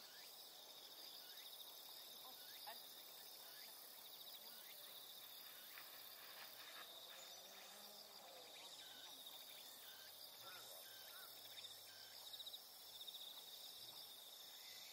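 Faint, steady trilling of grassland insects: a continuous high-pitched buzz made of fine rapid pulses, with scattered short faint chirps over it.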